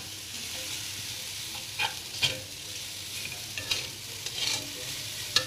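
Noodles with mustard greens and bean sprouts sizzling in a non-stick wok, with a black spatula scraping and knocking against the pan a handful of times as they are stirred.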